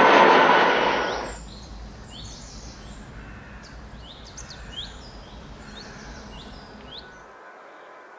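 Aircraft engine noise, loud at first, drops away sharply about a second in. Then birds chirp, a run of short, quickly falling high notes, over a faint low rumble that stops near the end.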